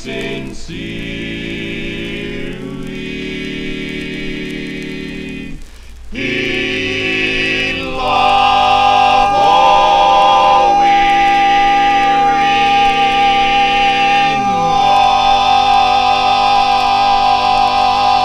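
Barbershop quartet singing a cappella: four men's voices in close harmony holding long sustained chords. After a short break about six seconds in, the song's closing chord swells louder, with one high voice holding a long steady note above the others.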